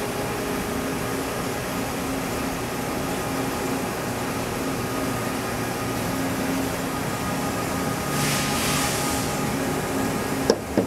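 Steady machine hum with a constant low tone from a large CNC bridge mill standing powered up. A short hiss comes in about eight seconds in and lasts about a second, and a sharp click sounds near the end.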